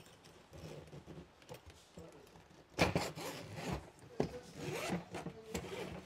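The zipper of a hard-shell suitcase being pulled open around its edge in several strokes, the loudest starting about three seconds in.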